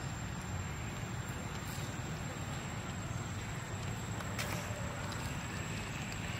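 Young macaque eating soft, ripe fruit: a few faint wet clicks and smacks over a steady low rumble.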